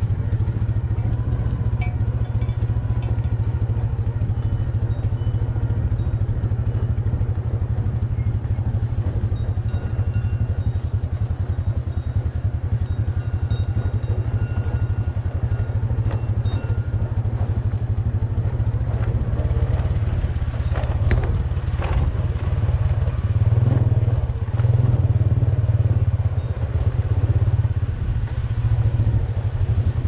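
Motorcycle engine running steadily while riding along a dirt track, a few knocks from bumps about twenty seconds in, then the engine grows louder for a few seconds.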